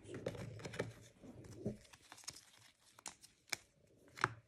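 Quiet crinkling and rustling of foil trading-card pack wrappers being handled, with a few scattered light ticks.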